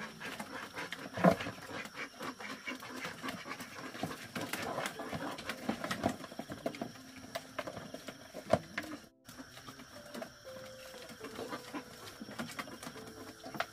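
Domestic ducks feeding from bowls of wet mash, their bills dabbling in rapid clicking pecks, with a few louder knocks of bowls and a metal basin on a bamboo slat floor.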